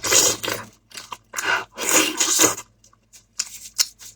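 A person chewing and biting food, in two longer stretches followed by a few short clicks near the end.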